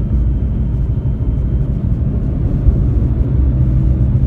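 Steady low rumble of a car in motion, as heard from inside the cabin.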